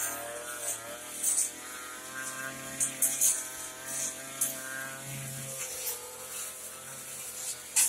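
Backpack two-stroke brush cutter running under load while cutting grass and weeds. Its engine note wavers in pitch and sags a little about two-thirds of the way through, with short sharp clicks scattered throughout.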